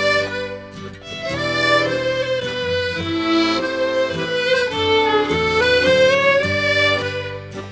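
Instrumental background music, a fiddle playing a melody of quick notes over a steady accompaniment.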